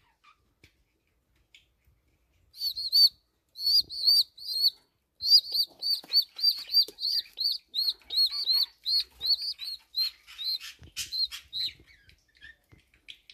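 Domestic pigeon squabs in the nest peeping: a long run of short, high cheeps, about three a second, that starts after a couple of seconds' quiet and thins out near the end. These are the chicks' calls while they wait for a parent to return.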